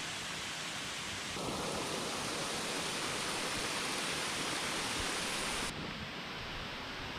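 Kuang Si waterfall's water rushing in a steady wash of noise. It gets louder about a second and a half in and drops back near the end.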